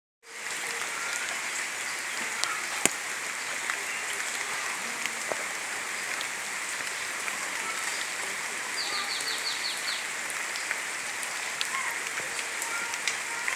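Rain falling steadily, a continuous hiss with scattered sharp drip clicks. About nine seconds in there is a quick run of about six short, high chirps.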